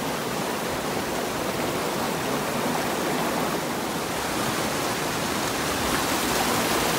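Water rushing down an alpine stream with small waterfalls, a steady, even rush.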